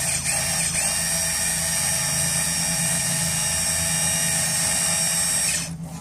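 Lexus RX350 rear electronic parking brake motor whirring steadily with a high whine, run directly on 12-volt DC to retract its screw away from the caliper piston; it cuts off about five and a half seconds in.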